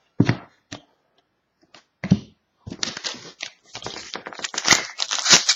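A few soft knocks of cards being handled, then a foil trading-card pack wrapper crinkling and tearing as it is opened, growing louder near the end.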